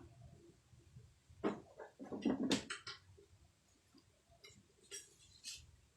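Light metallic clinks and knocks of tools and engine parts being handled, a cluster of them about a second and a half in, then a few scattered ones near the end.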